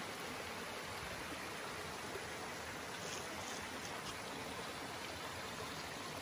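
Shallow rocky brook running over stones: a steady babble of flowing water.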